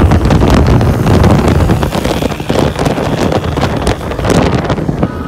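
Loud wind buffeting the microphone of a phone held on a moving motorcycle, a rough, gusty rush with road and engine noise mixed in beneath.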